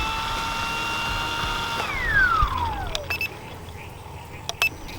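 Battery-powered RC plane's electric motor and propeller held at a steady high whine, then throttled off about two seconds in so the pitch glides down and dies away. A few light clicks follow near the end.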